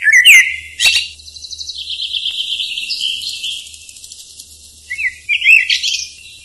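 Bird chirping and whistling: a few quick rising-and-falling whistles, then a fast trill lasting a few seconds, then more whistled chirps near the end.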